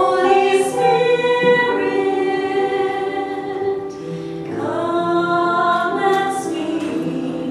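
Choir singing a hymn in long held notes, pausing briefly about four seconds in before the next phrase begins.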